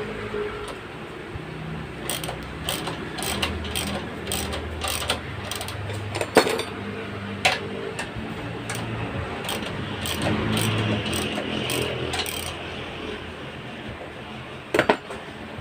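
Socket ratchet wrench clicking in quick, uneven runs as it is swung back and forth on a motorcycle rear-shock spring compressor, followed by a couple of sharp metal knocks near the end, over a steady low hum.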